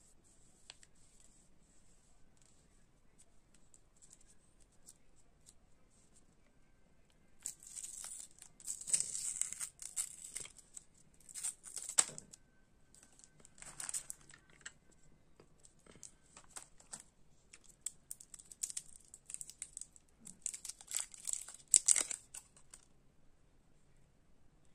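Wrapper of a Chupa Chups Big Babol bubble gum stick being torn open and crinkled by hand, then the paper peeled off a single gum piece. Faint rustling at first, then repeated bursts of crackling tears and crinkles from about a third of the way in, loudest at three points.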